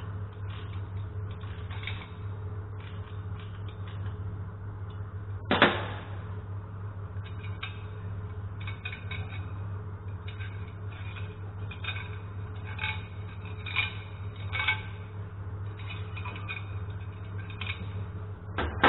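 Small clicks and knocks of a wooden part and tools being handled at a workbench, with one sharp knock about six seconds in and another near the end, over a steady low hum.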